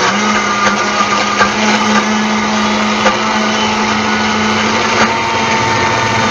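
Vitamix blender running at a setting between six and seven, crushing frozen milk cubes into a milkshake: a loud, steady whir with a constant motor hum and a few faint knocks.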